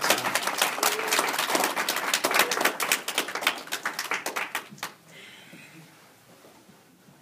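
Small audience applauding, with a voice or two among the claps, for about five seconds before it stops.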